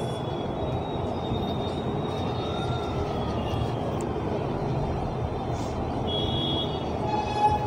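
Steady hum of road traffic, with a faint tone that slides down near the start and then rises and falls again about two to three seconds in.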